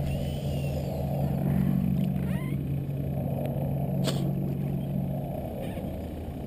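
A steady low engine drone that fades away near the end, over a low wash of water and wind noise, with one sharp click about four seconds in.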